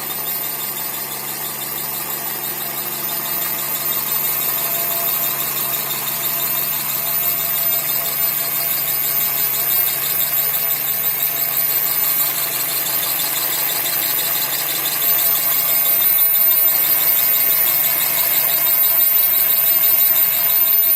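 Toyota Echo's engine running with a steady high-pitched whistle over it, the whole sound slowly growing louder.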